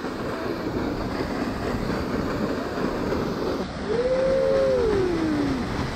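Steady rushing roar of a waterfall and creek. About two-thirds of the way in, a person's voice makes a long, falling 'ooh'.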